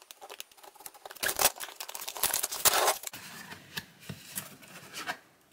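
Scissors snipping and slitting the seal of a cardboard box, with quick clicks over the first couple of seconds. About two seconds in, the cardboard flap and insert scrape and rustle as the box is opened; this is the loudest sound. A few lighter cardboard knocks follow.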